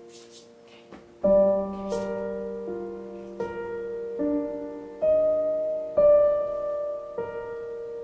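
Background piano music, soft held chords for the first second, then a gentle piano melody with a new chord struck about once a second.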